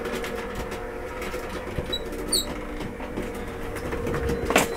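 Electric roller garage door's motor running with a steady hum as the door opens, with a sharp knock near the end.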